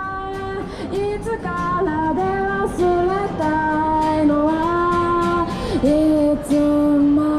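A song with a woman singing a slow melody in long held notes that glide between pitches.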